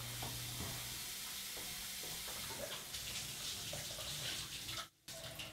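Tap water running steadily from a bathroom sink faucet into the basin, with a few faint knocks. The sound drops out briefly near the end.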